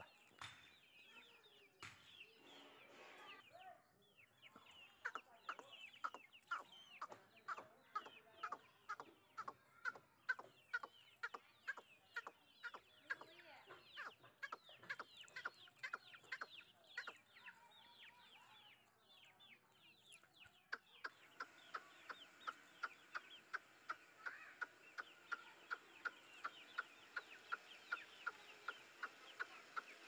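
Young Aseel chicks peeping: a continuous run of short, high chirps that slide down in pitch, about two a second, coming faster in the last third.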